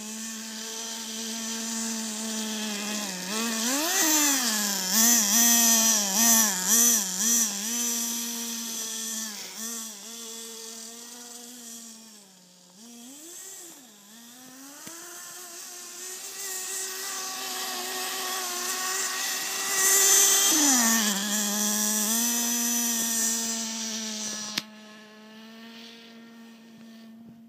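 Small nitro engine of a Redcat Racing Tornado S30 RC buggy, idling and then revved in quick blips, pitch swooping up and down, running at higher revs for a while and settling back to a steady idle in the last few seconds.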